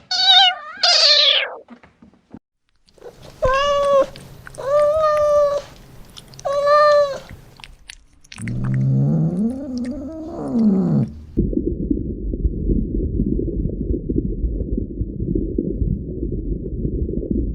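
A series of animal calls. It opens with a short high cry, then three separate drawn-out, wavering meow-like calls, then a low call that rises and falls. It ends with several seconds of steady, low, rough rumbling.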